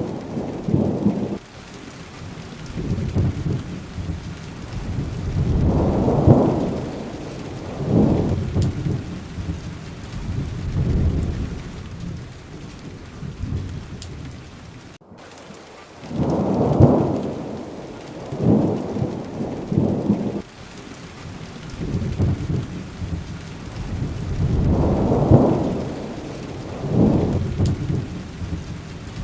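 Steady rain with thunder rumbling in low rolls that swell and fade every two to three seconds. The sound cuts out completely for a split second about halfway through.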